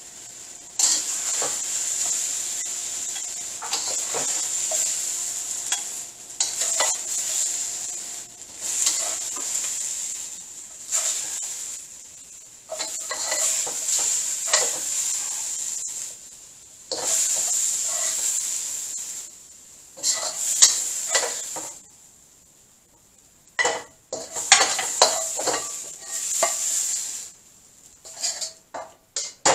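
Spatula scraping and scooping through a sizzling wok, in repeated strokes with short pauses. Near the end the sizzle fades and only sharp clinks of the spatula against the wok remain.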